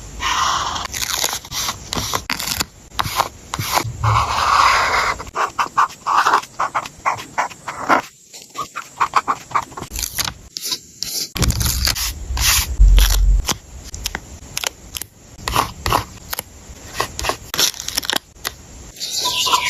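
Paper and stationery handled up close for a journal collage layout: crisp rustling and scraping with many quick clicks and taps, with a brief lull about eight seconds in.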